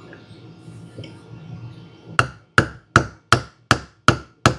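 Hammer blows on the starter's copper bearing, driving it into place: a steady series of sharp taps, about three a second, starting a little over two seconds in after some quieter handling.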